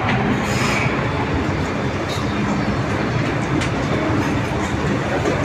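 Inside the car of an MTR M-Train electric multiple unit on the move: a steady rumble of wheels and running gear on the track, with a few sharp clicks.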